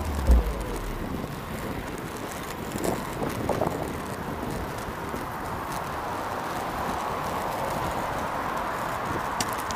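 Inline skate wheels rolling on asphalt: a steady rushing hiss that grows slightly louder toward the end, with wind on the microphone.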